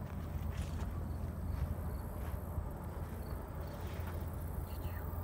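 Outdoor ambience: a steady low rumble with faint, short, high insect chirps about once a second.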